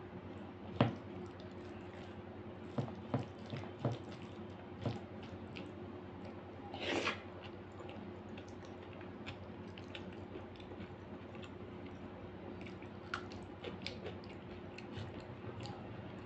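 Close-up eating sounds: fingers squishing dal-soaked rice against a plate, with scattered wet clicks of chewing and lip smacking. There is a short breathy rush of sound about seven seconds in.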